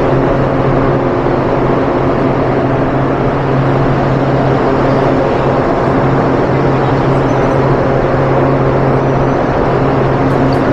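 Amtrak passenger train standing at an underground station platform, giving off a loud, steady hum over constant noise.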